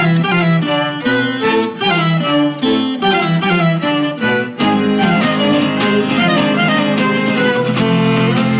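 Instrumental passage on violins with acoustic guitar. The strings play short, detached notes in a quick rhythm, then about four and a half seconds in change to long, sustained notes.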